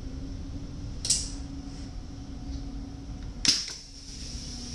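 Steady low hum inside a stopped NS DDZ double-deck electric train at its door. A sharp click comes about a second in and a louder clunk about three and a half seconds in.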